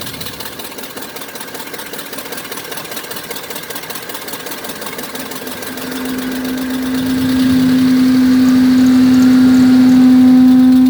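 RV engine running. About halfway in, a steady drone with a fixed pitch comes in, grows louder and holds.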